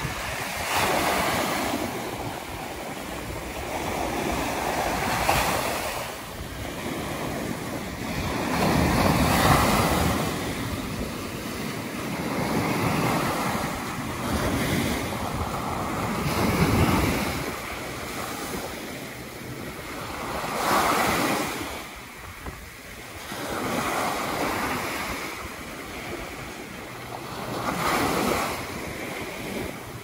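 Small surf breaking on a sandy beach and washing up the shore. The hiss of the water swells and falls away every three to four seconds.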